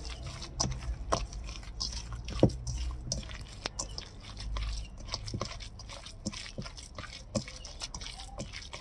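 Hand squeezing and mixing minced wolf-herring fish paste with ice water in a stainless steel bowl: irregular wet squishes and small clicks as the paste is worked.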